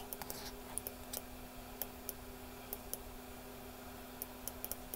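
Faint, scattered computer mouse clicks, about a dozen, over a low steady hum.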